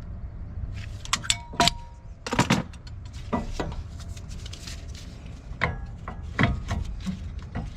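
Brake caliper compression tool being worked on a brake caliper: irregular sharp metallic clicks and clanks of steel tool parts against the caliper, over a steady low rumble.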